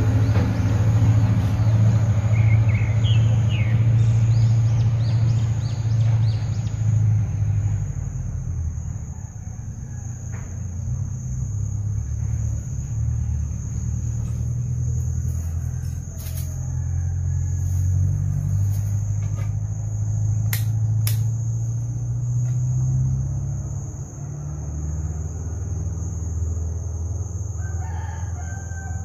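A rooster crowing in the first few seconds, over a steady low rumble and a continuous high-pitched whine.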